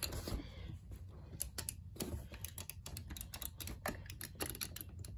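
Irregular run of small sharp clicks from elevator push buttons being pressed and handled.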